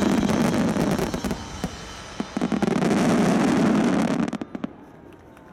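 Starmine fireworks barrage: many shells bursting overhead in rapid succession, a dense run of bangs and crackle. It cuts off about four seconds in, leaving a few scattered crackles that die away.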